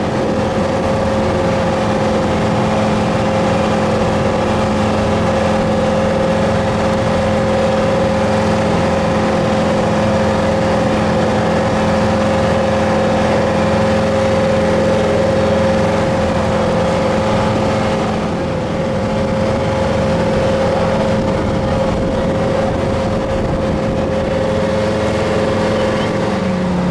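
Motorboat engine running steadily at cruising speed, with the rush of water and wind under it.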